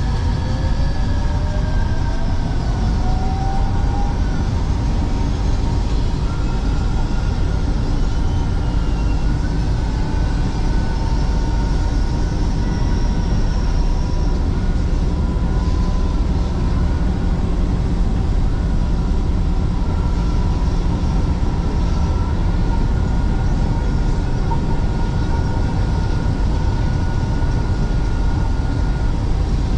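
MRT Line 3 light-rail train pulling out and running: a motor whine rises in pitch over the first few seconds, then holds as steady high tones over a constant low rumble of wheels on track.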